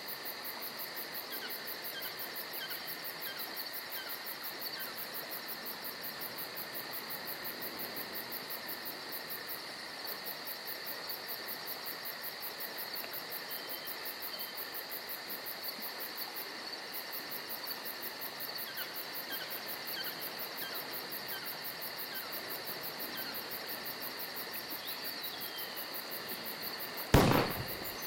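Steady chorus of chirping insects, with faint short bird chirps scattered through it. A single sharp thump near the end.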